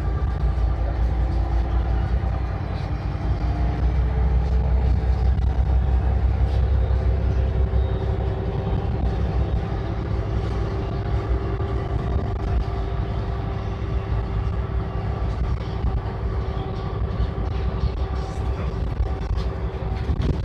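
Engine and road rumble of a moving vehicle heard from inside its cabin, with a steady mechanical whine over the low rumble.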